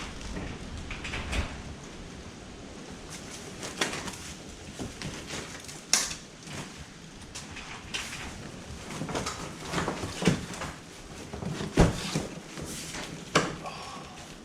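Hands-on work with tools and parts: scattered clicks, knocks and short scrapes at irregular intervals, with sharper knocks about halfway through and a loud one near the end.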